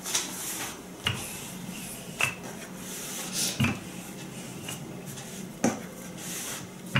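Wooden rolling pin rolling out sugar-cookie dough on a floured countertop: a soft rubbing rumble as it rolls, with about five light knocks, irregularly spaced, as the pin is lifted and set back down.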